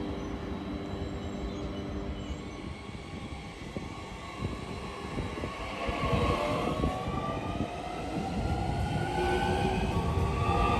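Electric train running through the station: the traction motors give a whine that climbs steadily in pitch from about four seconds in as the train picks up speed, over a low rumble and the clatter of wheels on the rails.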